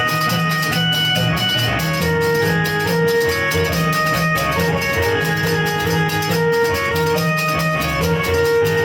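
Instrumental devotional music: held melody notes over a steady, fast percussion beat.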